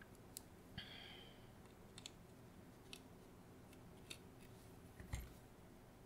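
Faint, scattered clicks and light taps from a precision screwdriver, tweezers and the opened plastic mouse housing being handled, with a brief scrape about a second in and a soft thump about five seconds in.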